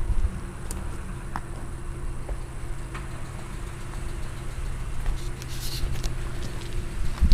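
Case 695 SR backhoe loader's diesel engine idling steadily, with a few light clicks and a brief hiss a little past halfway.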